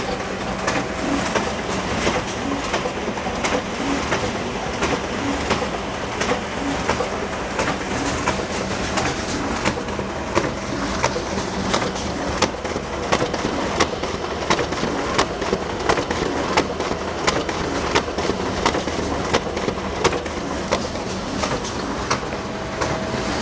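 Photocopier running continuously: a steady mechanical whir with a low hum and frequent, irregular clicking and clattering of its paper-feed mechanism.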